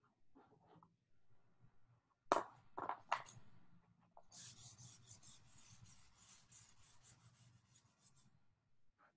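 A drawing tool scratching on paper: three or four quick, sharp strokes a little after two seconds in, then rapid back-and-forth hatching strokes for about four seconds.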